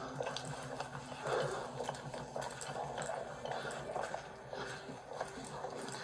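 Footsteps with rustling and knocking of gear, picked up by a police body-worn camera as its wearer moves quickly along the street: irregular soft knocks over a steady rustle.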